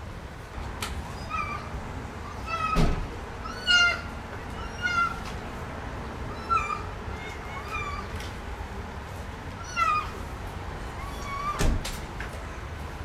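Kitten meowing over and over, short high-pitched calls about one a second. Two sharp knocks come through, about three seconds in and near the end.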